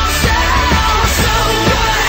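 Background pop-rock song with a steady drum beat, about two hits a second, and a sung melody over it.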